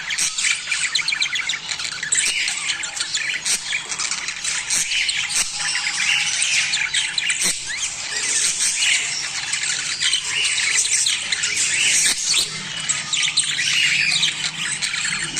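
A flock of budgerigars chattering nonstop: many overlapping chirps, squawks and warbles, with sharp clicks scattered among them.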